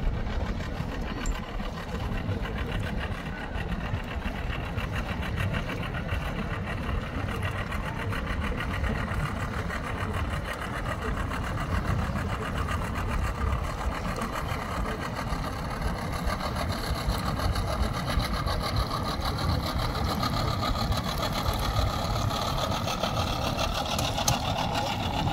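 A boat's outboard motor idling at low speed, a steady low engine rumble. A higher engine note grows louder in the second half.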